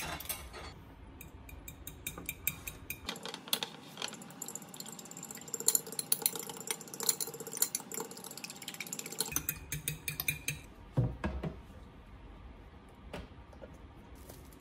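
Eggs being beaten with a metal fork in a glass dish: fast, steady clicking of the fork against the glass from about three seconds in, lasting roughly six seconds. A low thump follows shortly after.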